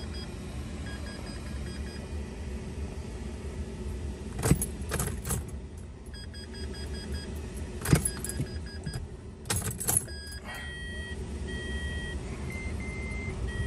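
Rear cooling fan of a Smart 453 electric drive blowing steadily while the car is switched on; it runs all the time because the fan has gone bad. Short runs of electronic dashboard warning beeps sound at intervals, with steadier beeping in the last few seconds, and there are a few sharp clicks and rattles about halfway through.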